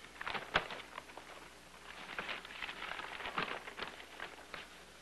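Newspaper pages being handled and turned, with a run of irregular rustles and crinkles.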